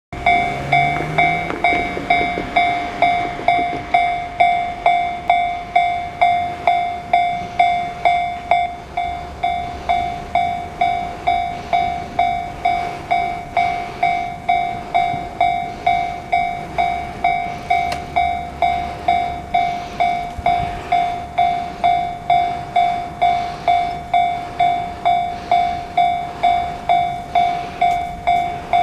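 Japanese railway level crossing's electronic warning bell ringing steadily, one clear repeated tone at about one and a half strikes a second, each strike fading quickly, signalling that a train is approaching.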